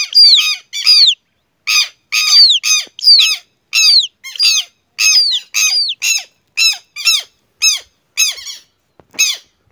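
Southern lapwings giving loud, harsh alarm calls, repeated about twice a second, each with a falling note, with a short pause about a second in: the parent birds alarmed at their chick being handled.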